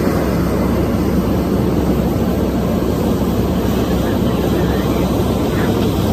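Steady low drone of heavy diesel machinery: a SANY SY500 hydraulic excavator working its boom and bucket beside a dump truck.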